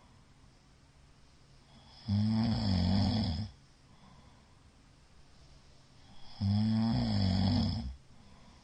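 A middle-aged man snoring loudly in his sleep: two long snores, each about a second and a half, roughly four seconds apart. The uploader puts the heavy snoring partly down to a night of heavy drinking.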